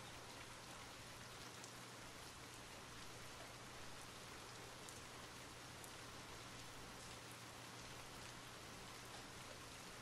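Faint, steady rain: an even hiss with occasional light drop ticks.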